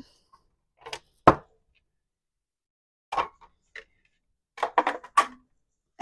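A few short taps and light knocks as cardstock pieces are handled and set down on a tabletop, the sharpest about a second in and a small cluster near the end.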